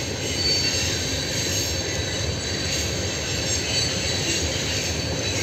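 Freight train of tank cars rolling past with a steady rumble of wheels on rail, and high squealing tones from the wheels coming and going over it.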